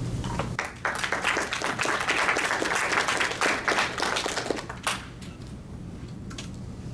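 Audience applauding: clapping starts about a second in, holds for about four seconds, then dies away to a few scattered claps.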